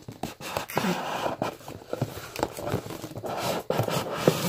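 Handling noise from opening a cardboard gift box and its packaging on a table: steady scraping and rubbing with many small knocks and clicks.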